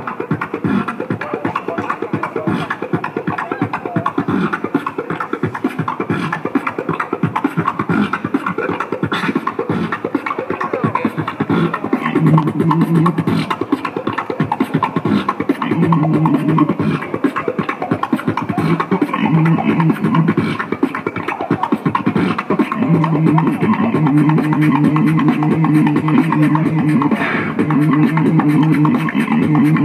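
Beatboxing into a handheld microphone: fast mouth-made kick, snare and click sounds, joined from about twelve seconds in by a hummed bass line in short repeated phrases that runs almost unbroken through the second half.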